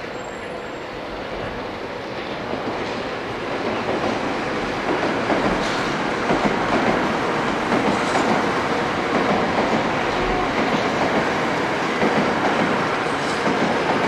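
Doctor Yellow, the 923-series Shinkansen track-inspection train, passing on an elevated line: a rumble of steel wheels on rail that builds over the first five seconds and then holds steady, with scattered clicks through it.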